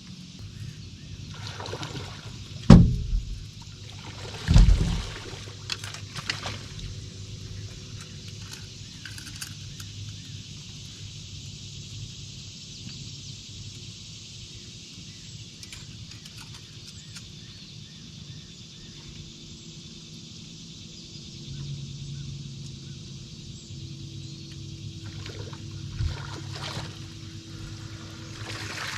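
Boat motor running steadily at trolling speed with water and wind hiss. There are two loud knocks, about three and five seconds in.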